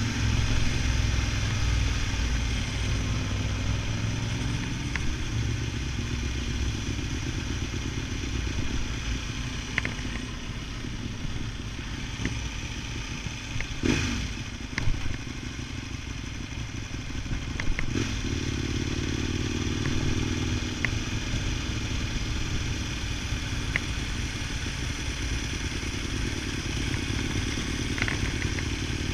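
Ducati Multistrada 1000DS's air-cooled L-twin engine running under way, with wind rushing past the mic. The engine eases off about a third of the way in and pulls again a few seconds later, with a few sharp knocks in the middle.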